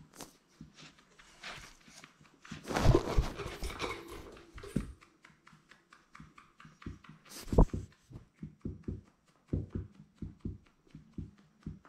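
Labrador retriever puppy sniffing and nosing right against the camera: a run of small clicks and knocks, with a louder noisy stretch of close breathing about three to four seconds in and a sharp knock just before eight seconds.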